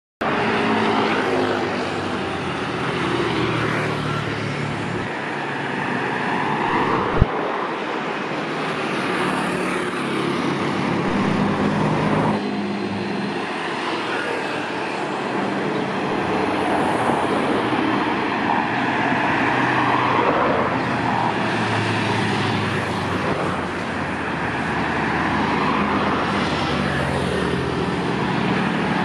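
Continuous loud vehicle noise with a low engine hum, with a single sharp click about seven seconds in.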